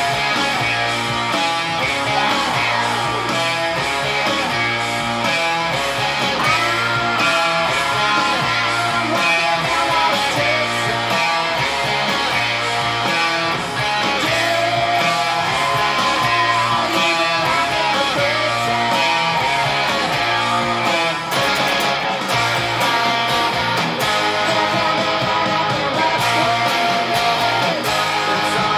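Electric guitar played continuously over a full rock band recording with drums and bass.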